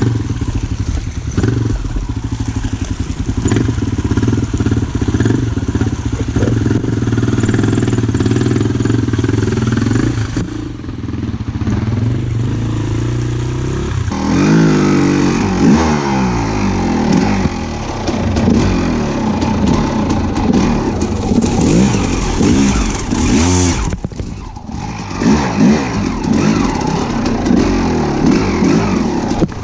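A small vehicle engine, motorcycle-like, running at a steady pitch for about the first half. From about halfway it revs up and down over and over, with a short dip about three-quarters of the way through.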